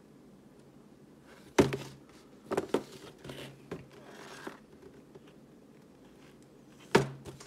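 Cardboard toy box being handled and turned over in the hand. Two sharp knocks, about a second and a half in and near the end, with a few lighter clicks and a rustle of cardboard between them.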